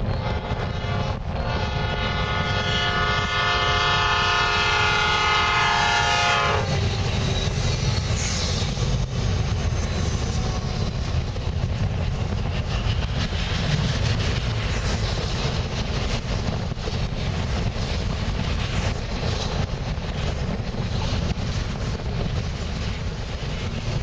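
A Norfolk Southern freight locomotive's horn blows one long chord of about five seconds near the start. Then the train rolls steadily past, with strong wind buffeting the microphone.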